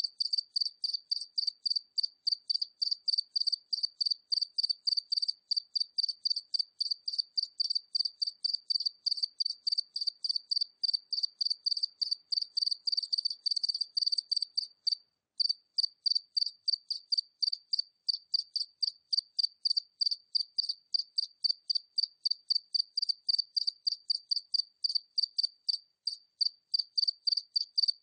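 A single cricket chirping at medium distance: a steady run of short, high chirps, about three a second, with a brief break about fifteen seconds in.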